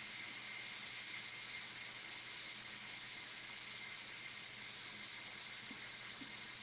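Steam hissing steadily from the pressure-release valve of a Pampered Chef Quick Cooker electric pressure cooker, venting its built-up pressure after cooking.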